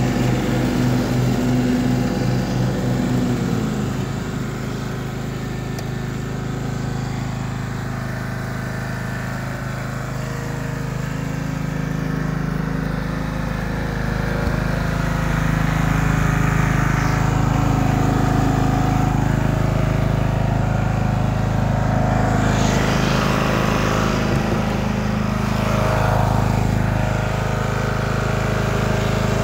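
Briggs & Stratton 12.5 hp engine of a Stiga Park ride-on mower running steadily, a little quieter for several seconds in the first third.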